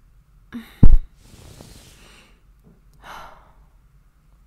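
A woman's breathy exhale and sigh close to the microphone, set off by a short voiced effort sound and a heavy low thump about a second in, then a softer breath near the three-second mark.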